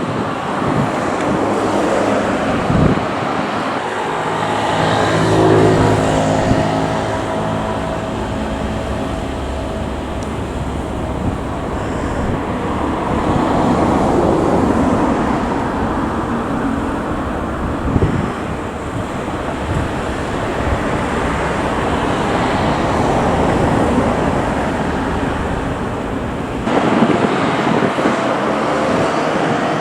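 Heavy construction machine's diesel engine running at work, with a pitched engine hum rising for a few seconds near the start. The low rumble drops away suddenly near the end.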